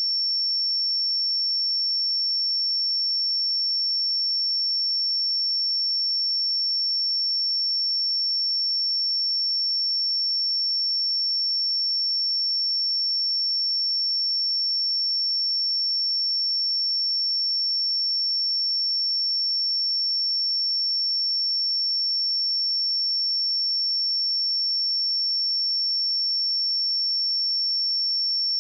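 Steady, unbroken 5445 Hz sine-wave test tone: a single high-pitched pure tone at constant level, used for checking speakers and headphones.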